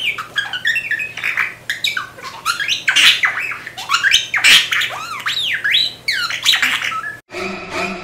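Budgerigar chattering: a fast, unbroken run of warbles, chirps and squawks with quickly sliding pitches, which breaks off suddenly near the end.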